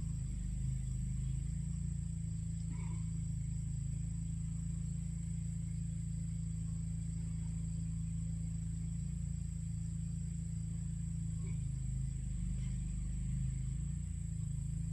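A steady low hum with no clear separate events.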